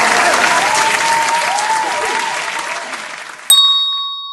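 Applause that slowly fades, then a single hand bell struck sharply about three and a half seconds in, the loudest moment, ringing on and dying away.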